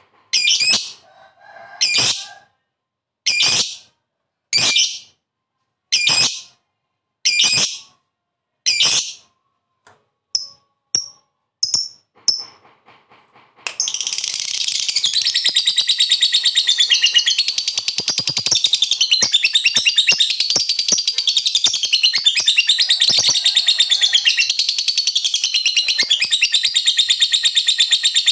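Lovebird calling: shrill single calls about once every second and a half, then a few short chirps, and about halfway through it breaks into a continuous, rapid chattering trill, the long 'ngekek' that keeps going without a break.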